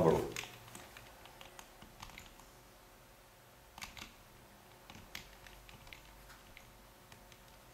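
Near silence: faint room tone with a low steady hum and a few scattered small clicks.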